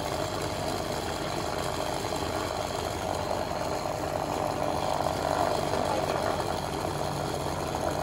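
Small electric cotton candy machine running steadily, its motor spinning the heated head as it throws out sugar floss.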